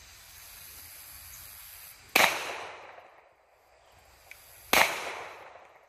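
Two shots from a Smith & Wesson M&P Shield 9mm pistol, about two and a half seconds apart, each trailing off in a short echo.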